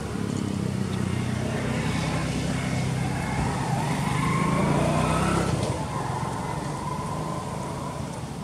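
A motor vehicle engine running, growing louder toward the middle and dropping away about six seconds in.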